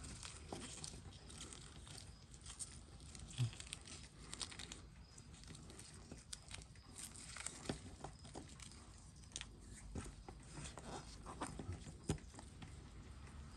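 Faint, scattered small clicks and scrapes of metal watchmaking tools on a stainless steel Seiko 6619 watch case as its case back is worked open and handled.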